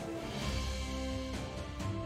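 Background music with held notes over a steady low bass and an occasional beat.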